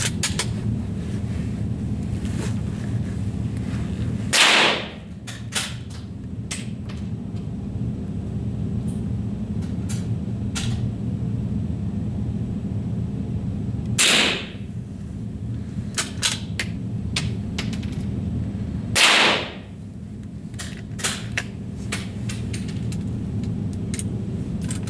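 Three rifle shots, about four, fourteen and nineteen seconds in, each a sharp report with a short ringing tail, over a steady low hum. Faint clicks fall between the shots.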